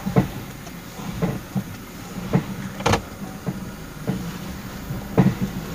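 A series of sharp, irregular clacking knocks from under a 2018 Toyota Fortuner as its brakes are applied, over the steady drone of its idling engine. The loudest knocks come about three seconds in and again near the end. The knocking comes from a broken alarm horn that had come loose from its bracket bolt.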